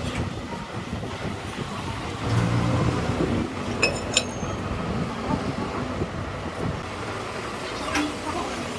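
Workshop background noise with a few light metallic clinks about four seconds in.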